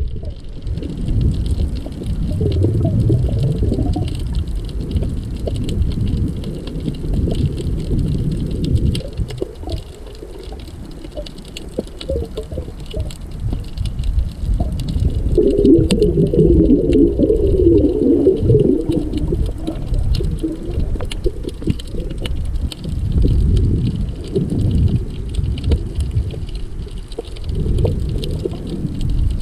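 Underwater recording through a camera housing: low rumbling and gurgling of water and bubbles that swells and fades in waves, loudest about halfway through, with faint crackling ticks above it.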